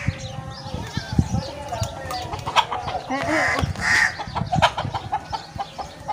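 Domestic hens and roosters clucking and squawking, several birds calling at once, with the loudest calls about three and four seconds in.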